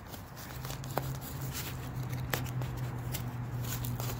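A multi-tool blade cutting open a package: soft scratching and rustling with a few small clicks, over a steady low hum.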